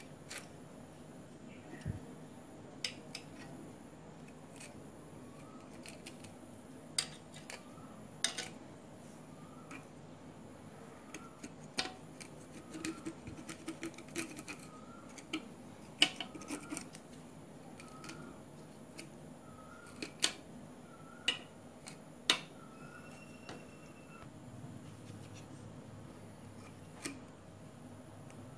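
Irregular sharp clicks and scraping of a hacksaw blade and pliers picking and cutting tangled thread off the armature shaft of a small electric air blower; the thread wound round the shaft is what had jammed the motor.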